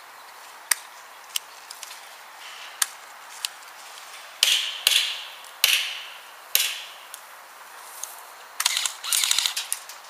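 Airsoft guns firing: sharp single shots spaced about a second apart, then several louder snaps with a short ringing tail, and a quick burst of rapid shots near the end.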